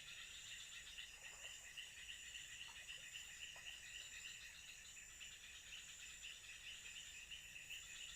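Faint chorus of night insects: a steady high trill with a rapidly pulsing chirp underneath, running evenly throughout.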